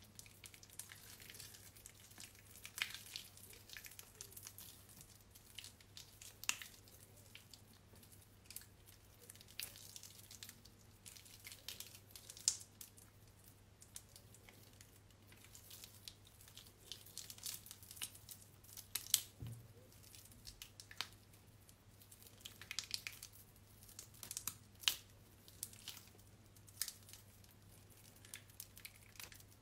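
Hands squeezing and crumbling soft, water-soaked bar soap: irregular wet crackles and squishes, with a few louder snaps as lumps break apart.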